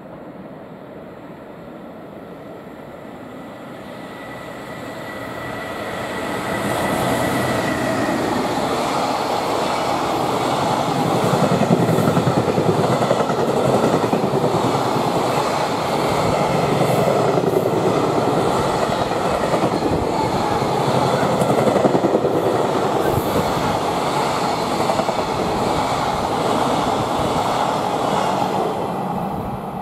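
A JR Freight EF210 electric locomotive approaches and passes, followed by a long train of container flatcars, their wheels clattering steadily over the rail joints. The sound builds over the first several seconds and then holds loud and even as the wagons roll by.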